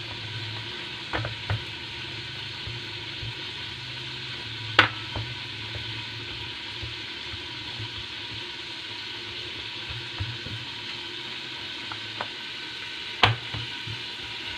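Hands patting and pressing a ball of stiff wheat dough flat into a roti on a steel plate: soft repeated low thuds, with a few sharp taps, the loudest about five seconds in and near the end, over a steady hiss.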